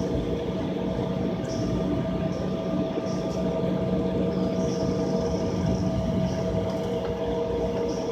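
Steady drone inside an airliner cabin on the ground before takeoff: a low rumble with several steady whining tones from the idling jet engines and cabin air.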